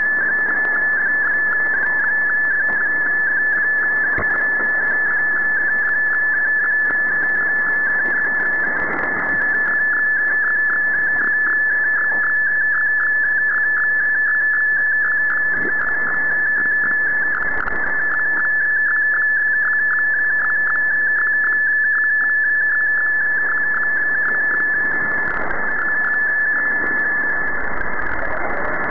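Shortwave radio receiving an MFSK digital picture transmission: a single strong steady tone near 1.7 kHz, broken by a fast even ticking, over a bed of radio static that swells and fades.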